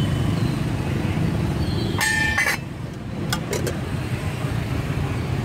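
Steady rumble of street traffic. About two seconds in, a short metallic scrape and ring as a stainless steel lid is set onto the small baking pan, followed by a few light clicks.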